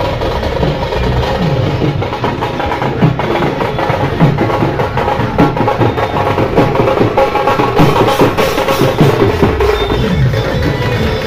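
Loud procession music driven by fast, busy drumming, with dense strokes throughout.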